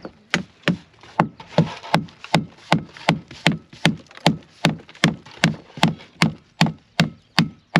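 Steady hammer blows, about twenty strikes at close to three a second, knocking at boat fittings to drive them loose.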